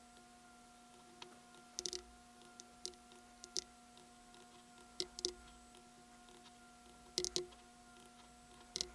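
Scattered clicks of a computer mouse and keyboard, coming singly or in quick clusters every second or two, over a faint steady hum.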